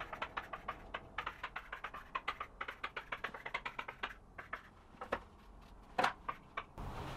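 Chalk clicking and tapping on a chalkboard while writing, a quick run of short clicks that thins out after about four seconds, with a few louder taps near the end.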